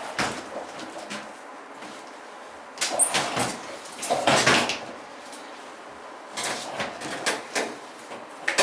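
Irregular knocks, clacks and scraping from a drum washing machine being handled while it is cleaned, with a longer rubbing stretch in the middle.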